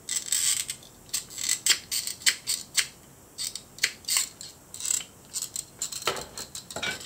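Tin snips cutting short slits into a thin steel scale cut from a tin can: an irregular series of sharp metallic snips and clicks as the jaws close on the sheet.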